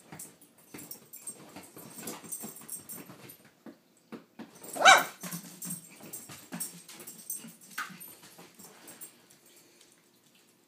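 Italian greyhounds moving about on leather furniture, with scuffing and claw clicks. One dog gives one short, loud yelp about five seconds in, and a brief faint whine comes near eight seconds.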